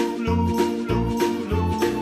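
Upbeat background music with a steady bouncy bass beat and a bright melody line.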